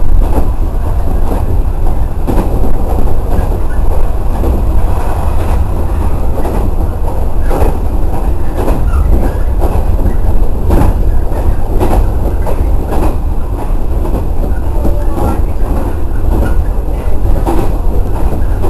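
113 series electric train running at speed, heard from just behind the driver's cab: a steady low rumble with irregular sharp clicks as the wheels pass over rail joints.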